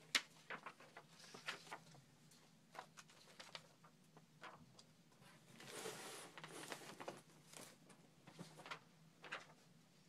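Paper and card folders being handled and shuffled: a sharp tap at the start, then scattered light rustles and taps, with a longer sliding rustle of paper around the middle.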